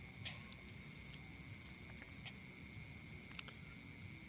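Night insect chorus of crickets, a steady high shrill trill with a second steady lower note beneath it.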